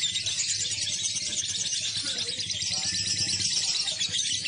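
Lovebirds chattering: a dense, high-pitched, rapid chirping trill that goes on without a break.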